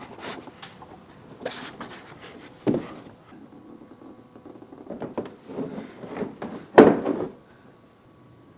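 Large 3D-printed plastic wing being handled and set onto a car's rear bumper: scattered knocks, scrapes and rustles of plastic against bodywork. The loudest thunk comes about seven seconds in, as it settles into place.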